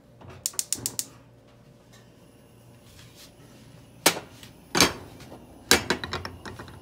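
A quick run of about five sharp clicks, a whisk tapping against a glass bowl, followed by three loud separate knocks of a utensil against a frying pan on the stove.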